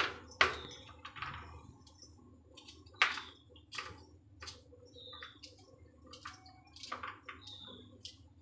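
A knife cutting fresh coconut flesh into small pieces: irregular crisp cuts and clicks, the loudest at the start, just after it and about three seconds in.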